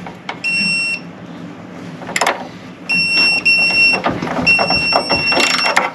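Electronic beeping at one steady high pitch: four beeps, the first three short and the last about a second long. Clicks and a knock of hand tools on metal sound underneath.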